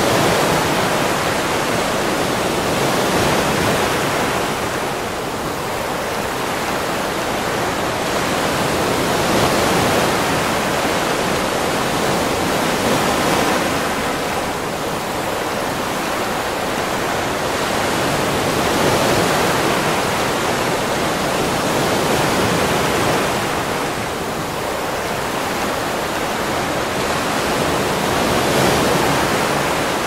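Small ocean waves breaking and washing up a sandy beach: a steady rush of surf that swells and eases every few seconds as each wave comes in.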